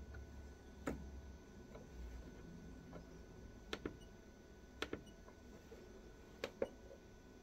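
Faint clicks of buttons and knobs being pressed on a Canon RC-IP1000 remote camera controller: one click about a second in, then three quick double clicks.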